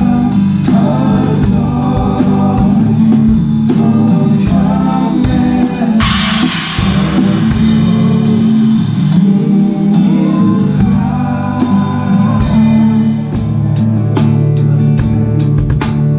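Live worship band playing a gospel song: singing over a drum kit, bass and keys, with a steady beat. A cymbal crash about six seconds in rings out and fades.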